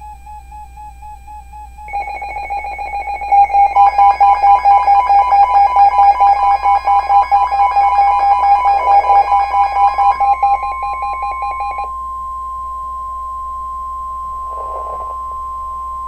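Emergency alert tones. A warbling tone gives way, about two seconds in, to a loud, rapidly pulsing cluster of electronic tones. Under it runs a steady single tone, the 1050 Hz NOAA Weather Radio warning alert tone, which carries on alone after the pulsing stops and cuts off at the very end.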